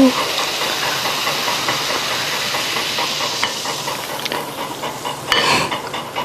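Fizzy soft drink hissing and foaming in a ceramic mug just after being poured into a milky drink: a steady dense fizz that thins out over the last couple of seconds, with a short louder burst about five seconds in.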